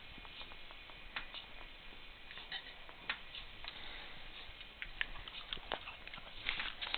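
Faint, scattered clicks and small taps from a small dog sitting up and shifting as it waits for a treat, over quiet room noise.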